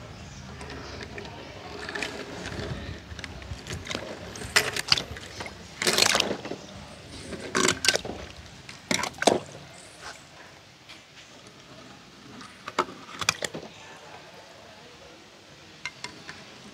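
Small die-cast toy cars dropping one after another into a shallow tub of water, each landing with a short splash; about eight splashes, several in quick pairs, with a lull in the middle and a fainter one near the end.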